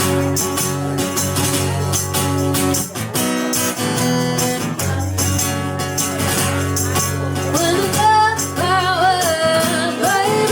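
Band playing a rock song: strummed guitars over a steady percussive beat, with a singing voice coming in about three quarters of the way through.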